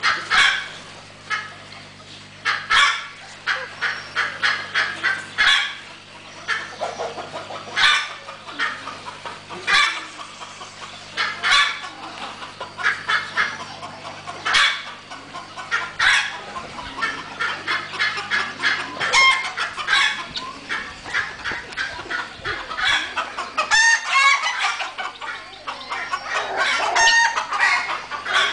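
Chickens clucking, a short call every second or two, with the calls coming thicker toward the end.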